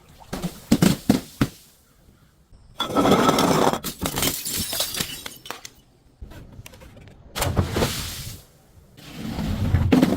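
Glass breaking and crunching: a few sharp knocks, then three bursts of shattering, the loudest about three seconds in.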